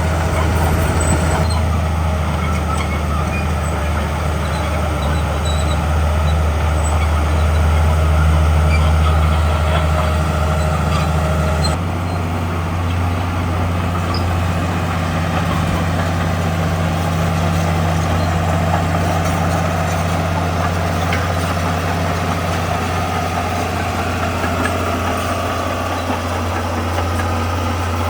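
Heavy diesel earthmoving machinery running, a loud steady low engine drone. About twelve seconds in the sound changes abruptly to a slightly quieter drone at a different pitch.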